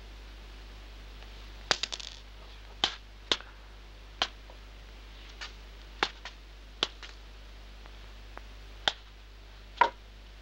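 Hard olive pits clicking as they are struck and knocked about: about nine sharp, irregular clicks, a quick cluster near two seconds in and the loudest near the end, over a steady low hum.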